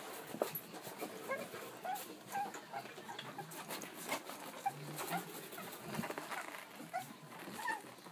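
Newborn Presa Canario puppies squeaking and whimpering while nursing, many short high squeaks scattered throughout, over faint rustling.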